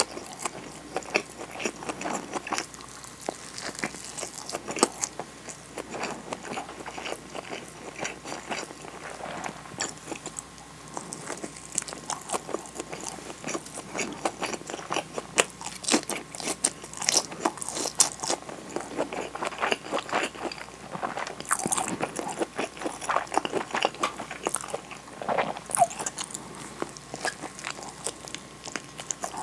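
Close-miked biting and chewing of a nori-wrapped rice ball (onigiri), with many quick, irregular crackles and clicks of the mouth and food.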